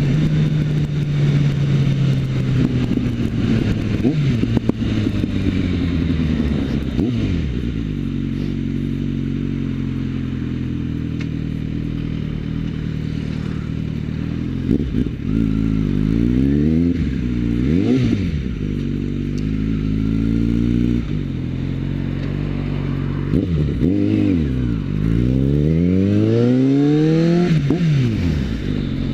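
Suzuki GSX650F's inline-four engine heard from the rider's seat while riding. The engine note sinks slowly at first, then the revs rise and fall several times in the second half as the bike slows and pulls away again, with one long rising pull near the end.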